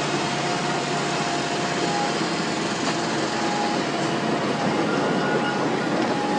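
Steady engine noise from a slow-moving multi-axle heavy-haul transporter, with a faint high whine that comes and goes over it.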